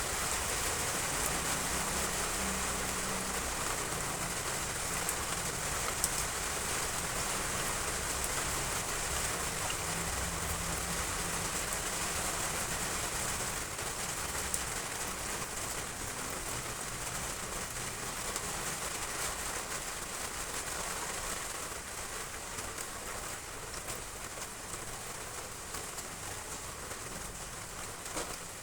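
Heavy rain hitting roof tiles: a steady, dense patter with a few sharper single drops, easing off slightly toward the end.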